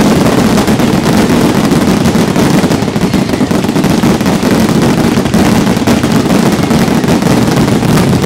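Aerial fireworks finale: many shells bursting in rapid succession, a loud continuous barrage of overlapping bangs and crackling with no breaks.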